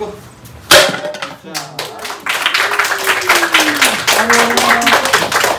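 One loud, sharp smack about a second in, then an audience clapping and cheering, the clapping growing dense from about two seconds in.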